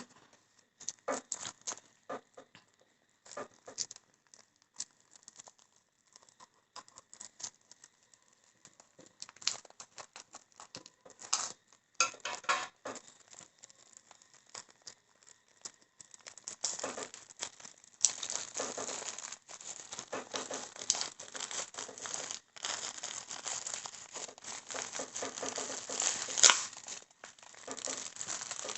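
Plastic packaging being handled and opened by hand: scattered rustles and clicks at first, then steady crinkling and rustling from a little past halfway.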